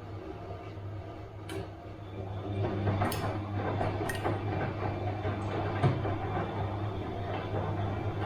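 Bosch washing machine running a wash cycle: a steady low hum with scattered sharp clicks and knocks, growing louder about two and a half seconds in.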